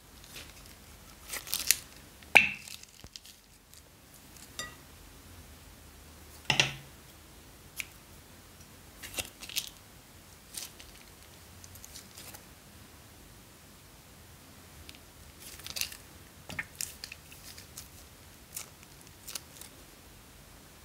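Scissors snipping open small plastic bags of slime and plastic crinkling as the slime is squeezed out onto a glass dish. The sounds come as scattered short snips and crackles, the two loudest about two and a half and six and a half seconds in.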